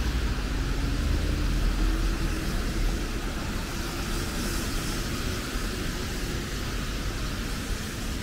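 City road traffic on a rain-wet street: a steady low rumble with tyre hiss as vehicles pass, and a faint whine that rises slowly in pitch over the first few seconds. It eases off a little near the end.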